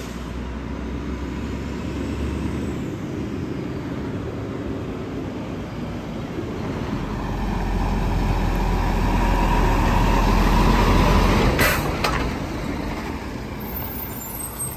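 1997 Mack RD garbage truck's diesel engine running and growing louder as the truck pulls up. Near the end there is a short burst of hiss, and then the sound drops.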